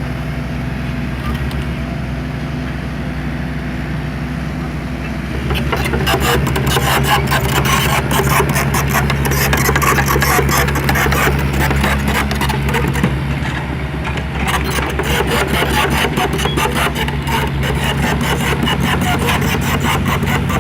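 A motor vehicle's engine running steadily. About five seconds in it gets louder, and a dense rattling and crunching joins it, like wheels or machinery working over rough ground.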